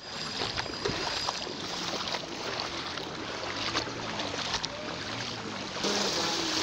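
Flood water splashing and sloshing as feet wade through it and a bicycle wheel cuts through it, with many small splashes throughout, growing louder near the end.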